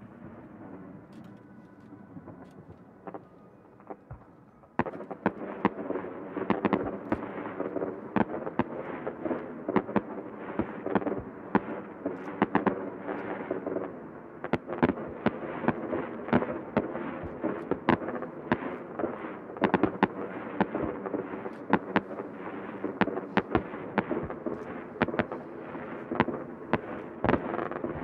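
Aerial fireworks shells bursting. A few separate bangs come first, then about five seconds in it turns into a dense barrage of rapid bangs and crackling that keeps on.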